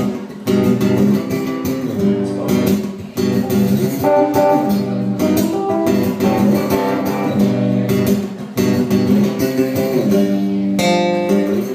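Guitar strumming chords steadily, a live song intro.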